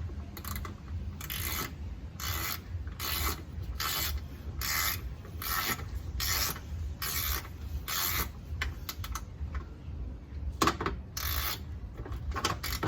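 Ratchet wrench with a 10 mm socket turning a bolt in a door, its pawl rasping on each stroke in an even rhythm of a little more than one stroke a second, with a few sharper clicks near the end.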